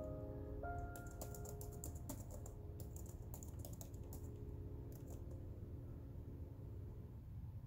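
Typing on a computer keyboard: a quiet run of irregular key clicks starting about a second in and thinning out after about five seconds, while held piano notes die away at the start.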